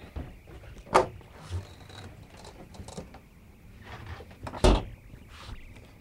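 Two loud clunks about three and a half seconds apart, the second a heavy thump, with lighter clicks and rattles between, from the hard-side A-frame camper's fold-down wall panels and latches being worked.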